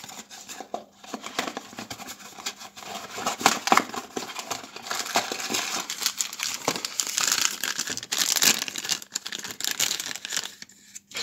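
Foil blind-bag wrapper of a Funko Mystery Mini figure crinkling and tearing as it is opened by hand, a dense run of crackly rustles.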